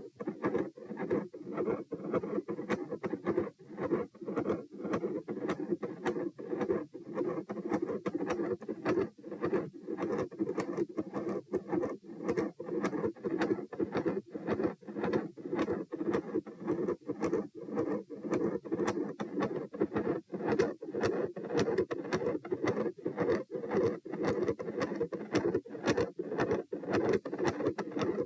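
Human heart sounds heard through a stethoscope: a steady, regular rhythm of lub-dub beats over a continuous low hum.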